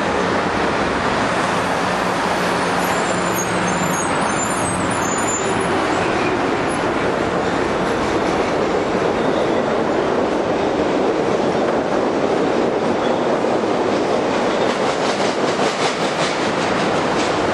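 Steady, continuous vehicle noise of heavy traffic, holding level throughout with no breaks.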